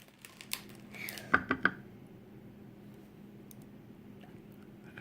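Small metal lock parts clicking as the pins of a gutted pin-tumbler lock are handled: a quick run of sharp clicks in the first two seconds, then only faint ticks.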